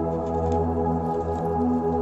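Ambient background music with slow, held keyboard chords.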